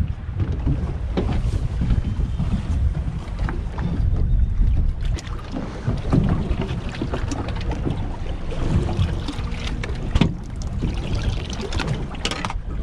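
Wind buffeting the microphone on an open boat at sea, a steady low rumble, with scattered knocks and clatter of gear being handled on the deck, the sharpest about ten seconds in.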